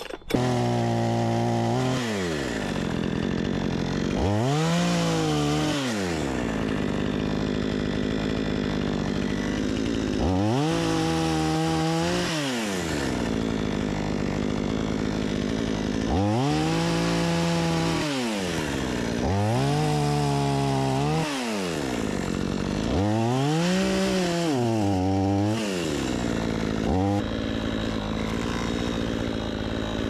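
Two-stroke petrol chainsaw starting up, then idling and being revved up and let back down to idle about six times, with a short blip near the end.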